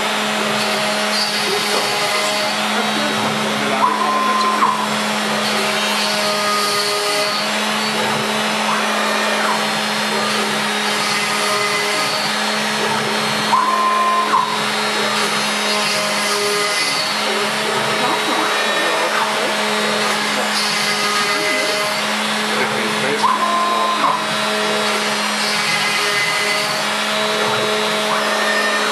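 Router spindle on a CNC gantry router running steadily, mixed with a dust extractor's rush, as the cutter mills holes for threaded inserts into a plywood worktop. Three times, about ten seconds apart, a short louder burst with a brief whistling tone rises over the steady noise.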